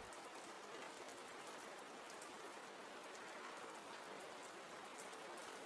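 Faint, steady soft rain falling: an even hiss of rain with scattered small drop ticks.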